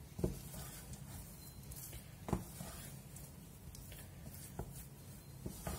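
Wooden spatula working a thick choux-style dough in a stainless steel saucepan: soft scraping and squishing, with three sharp knocks of the spatula against the pan, near the start, about two seconds in and near the end. The dough is being dried over low heat until it comes away from the sides of the pan.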